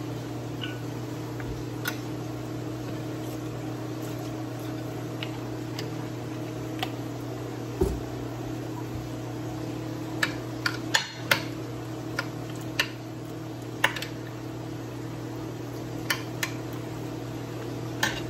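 Scattered light clinks and taps of a metal spoon against a glass baking dish as raw pork chunks are tossed with seasoning, several in quick succession about ten seconds in. Under them runs a steady low electrical hum from a kitchen appliance.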